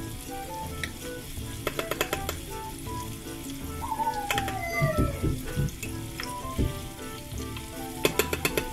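Shrimp deep-frying in a saucepan of hot oil, a steady sizzle, with quick runs of metal tongs clicking about two seconds in and again near the end. Background music plays underneath.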